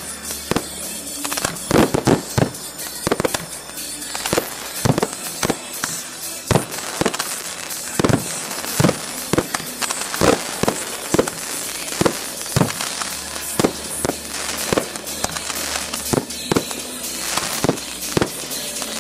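Fireworks display: aerial shells bursting one after another in a rapid, irregular string of bangs.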